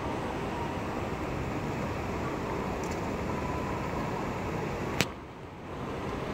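Steady hum of a large airport terminal hall, mostly air-conditioning and ventilation noise. A single sharp click about five seconds in, after which the sound briefly drops.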